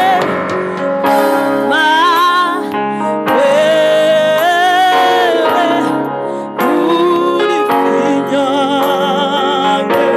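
A woman singing a slow gospel worship song into a microphone over keyboard chords, holding long notes, with vibrato on the notes near the end.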